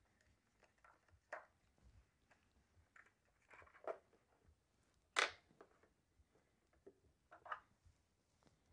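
Faint clicks and scrapes of a 4 mm hex key loosening the screw of a DeWalt DW735 planer's plastic speed-change knob and the knob being pulled off. There are a handful of separate clicks, the sharpest about five seconds in.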